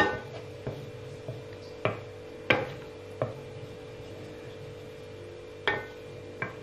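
Wooden spoon knocking and scraping against an enamelled cast-iron skillet while stirring melting butter: irregular sharp taps about every half second, a pause of about two seconds, then two more taps near the end, over a faint steady hum.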